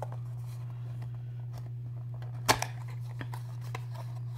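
Cosmetic product packaging being handled and opened: one sharp click about two and a half seconds in, then a softer one just after, with a few faint ticks, over a steady low hum.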